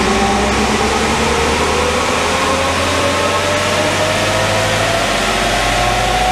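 Holden Colorado turbo-diesel engine pulling under load on a chassis dyno, its note rising slowly and steadily as the revs climb, over a loud rush of tyres and dyno rollers.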